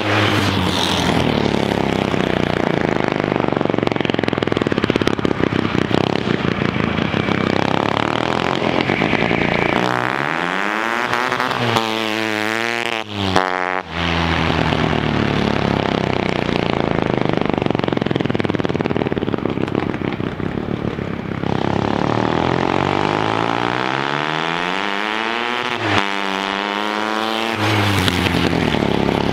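Go-kart powered by a 1975 Hercules W2000 single-rotor Wankel motorcycle engine, driven hard: the engine revs up and down continuously, its pitch climbing and then dropping abruptly about thirteen seconds in, and climbing again near the end.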